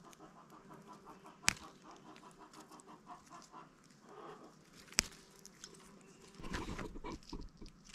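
Chickens clucking softly in the background, a quick, steady run of low clucks. Two sharp clicks stand out, about a second and a half in and again about five seconds in, and plants rustle near the end.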